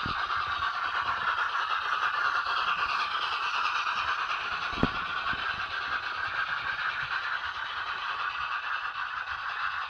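Model railway trains running on the track: the steady running noise of small electric locomotives and their wheels on the rails, with one sharp click about five seconds in.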